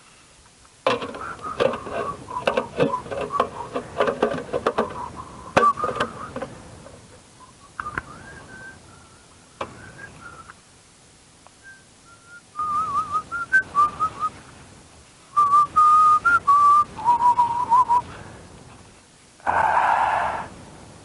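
A person whistling in short wavering phrases, with clicks and rustling from handling things during the first few seconds. A louder, breathier whistled note comes near the end.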